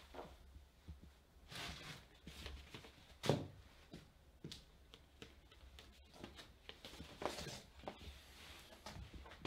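A person quietly handling things: soft rustles, a single sharp knock about three seconds in, and more rustling near the end, over a faint low hum.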